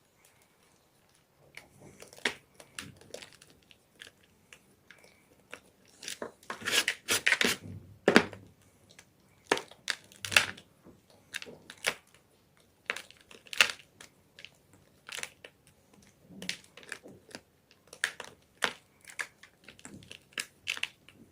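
Gym chalk being bitten and chewed: a string of dry, irregular crunches that starts about a second and a half in and is loudest a few seconds later.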